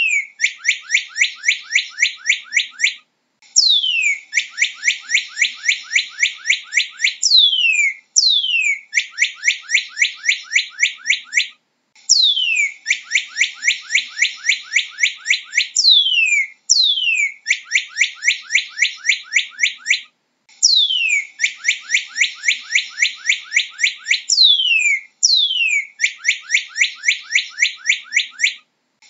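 Northern cardinal singing in repeated phrases. Each phrase opens with one or two long whistles sliding down in pitch, then a fast run of short down-slurred notes, with brief pauses between phrases.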